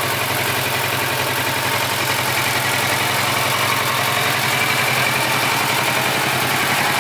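Kawasaki Versys 650's parallel-twin engine idling steadily, with no revving.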